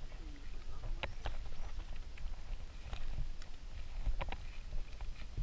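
Footsteps on a dry dirt and grass bank: a few irregular scuffs and sharp taps over a low rumble.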